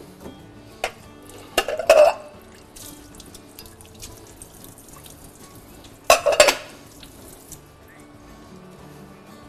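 Ceramic plates clattering and knocking against each other at a sink, in two loud bursts about two seconds in and about six seconds in, over soft background music.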